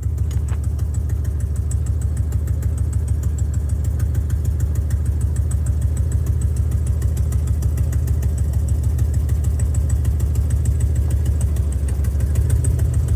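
Engine running steadily with a deep, rapid exhaust pulse. The vehicle has exhaust leaks that the owner means to fix.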